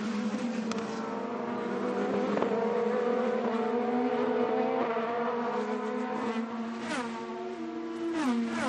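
IndyCar's 2.2-litre twin-turbo V6 running at speed, its note holding steady and climbing slowly, then dropping in several quick steps near the end.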